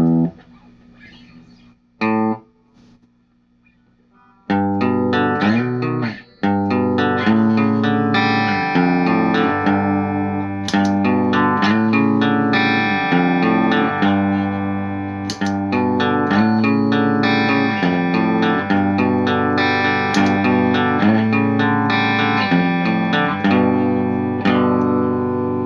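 Electric guitar played through a valve amp: two short strums, a quiet gap of about two seconds, then a steady chord riff from about four seconds in that carries on to the end.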